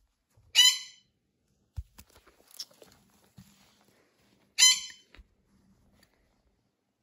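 Two short, loud, high-pitched squeaks about four seconds apart, with soft thumps and rustling of handling between them.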